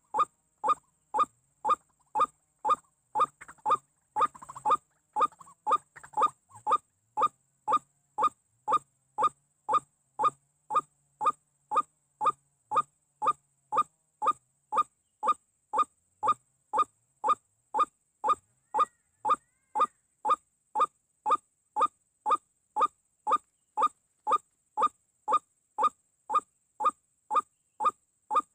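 White-breasted waterhen calls: a short, slightly falling note repeated evenly, about three calls every two seconds. A brief rustle comes about four to five seconds in.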